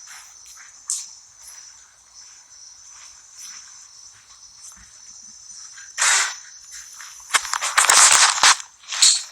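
A steady high chirring like an insect chorus, with several bursts of rustling, scuffing noise. The longest and loudest burst comes about seven to eight and a half seconds in.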